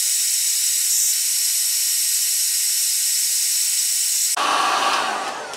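Electric heat gun blowing hot air in a steady hiss while heating a PVC coupling to soften it. The hiss fades at the very end.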